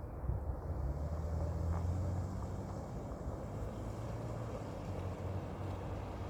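Road traffic: a vehicle passing, its low engine and tyre rumble swelling in the first second, loudest about two seconds in, then easing off.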